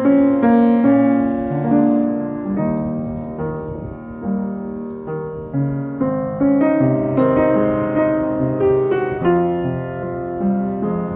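Background music: a slow piano piece, notes and chords struck and left to ring.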